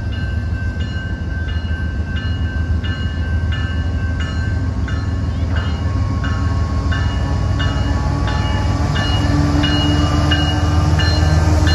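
BNSF diesel locomotives rumbling as they haul an intermodal train toward a grade crossing, growing louder as they near. Over it a grade-crossing warning bell dings steadily, about three strokes every two seconds.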